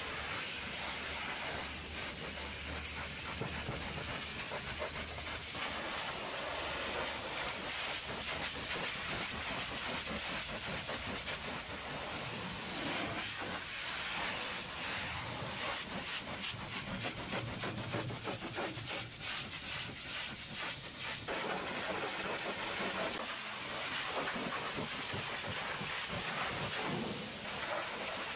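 High-pressure water jet from a hot-water pressure-washer lance hissing steadily as it blasts the wheels, tyres and chassis of a truck.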